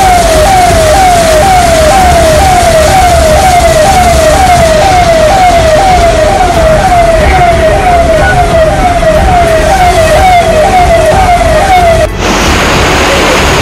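An electronic siren sounding a fast, repeating falling tone, about two cycles a second, over a steady rush of heavy rain. It cuts off suddenly near the end, leaving only a steady rushing noise.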